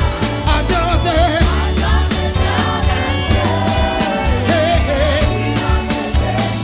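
Upbeat gospel praise music from a live church band and choir, with a strong pulsing bass and singing voices.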